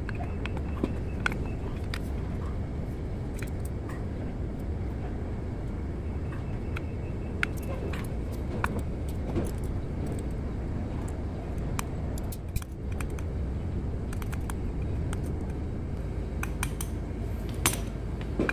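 Scattered light metallic clicks and clinks of a Caterpillar 3406C piston, wrist pin and connecting rod being handled and fitted together, over a steady low rumble.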